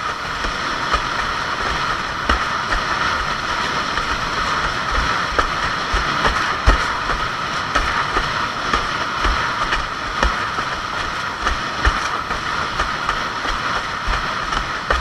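Fanatic Bee 284 windsurf board planing through chop: a steady rush of water and wind, with frequent irregular low thumps as the board hits the chop.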